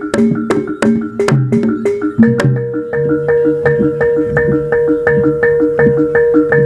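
Javanese gamelan music accompanying a jaranan (kuda lumping) dance: ringing pitched mallet strikes in a fast, even pattern over sharp percussive slaps. About three seconds in, the slaps fade and a steady held note comes in under the mallet pattern.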